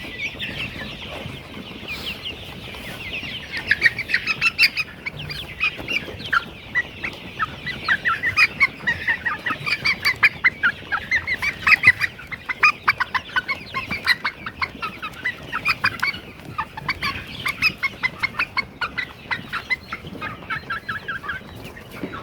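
A flock of eight-week-old laying pullets clucking and cheeping, with many short calls overlapping. The chorus grows busier a few seconds in.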